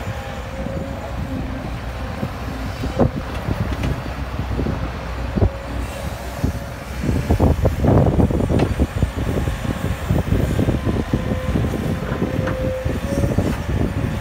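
Caterpillar crawler excavator's diesel engine running under hydraulic load as the machine swings and digs, with a faint steady whine. About halfway through comes a louder, rougher stretch as the bucket digs into dry earth, with a few knocks.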